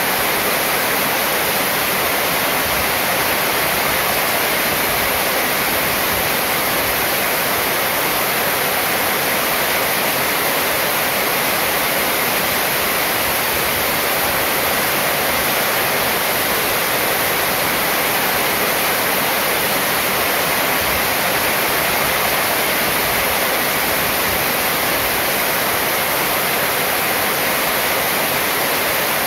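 Heavy rain falling on a corrugated metal roof and pouring off its edge: a steady, dense hiss.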